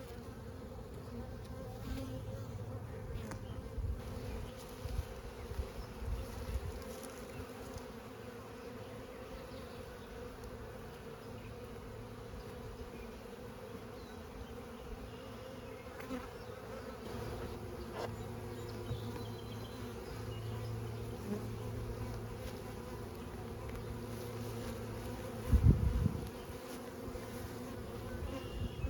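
Honeybee colony buzzing steadily around open frames being moved from a nuc into a hive box. A few low bumps of handling are heard, with one loud low thump near the end.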